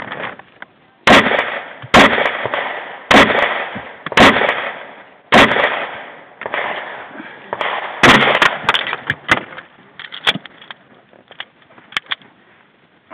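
Semi-automatic pistol shots fired from inside a car through the open passenger window, each with a short echoing tail. There are five shots about a second apart, a pause, and a sixth, followed by fainter clicks and knocks.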